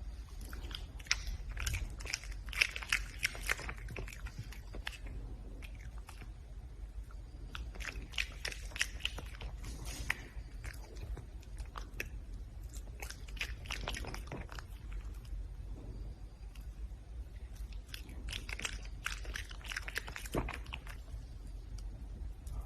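Red panda chewing and crunching its food, in bouts of crisp crunching a few seconds long, about four of them, with quieter pauses between.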